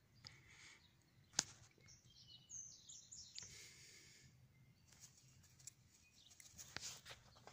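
Near silence with a single sharp click about a second and a half in, faint high chirps a little later, and a few soft clicks near the end.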